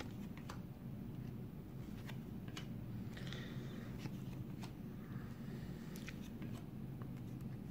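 A stack of trading cards being flicked through by hand, quiet: scattered faint clicks of card edges and two soft sliding swishes, about three and five seconds in.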